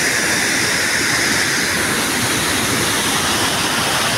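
Fast brown floodwater pouring over a washed-out road edge like a waterfall: a steady, loud rush of water.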